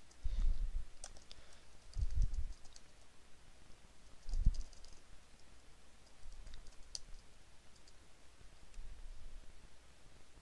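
Computer mouse clicks and keyboard typing: scattered light clicks and keystrokes. Three dull low thumps come about half a second, two seconds and four and a half seconds in, the last the loudest.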